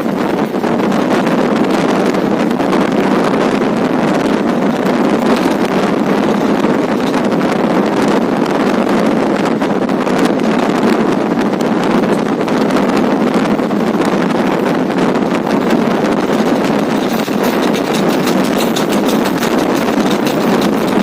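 Steady, loud rush of wind and running noise aboard a fast-moving passenger train, with wind buffeting the microphone.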